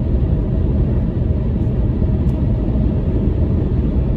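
Steady rumble of a car in motion, heard from inside the cabin: tyre and engine noise.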